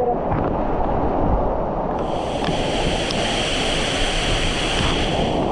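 Waterfall and stream water rushing steadily and loudly over rocks. A high, even buzz joins in about two seconds in and stops shortly before the end.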